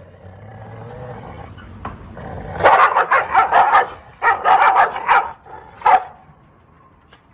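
Two dogs growling and barking at each other across a gate: a low growl builds for a couple of seconds, then two quick flurries of barks break out, and a single bark follows near the end.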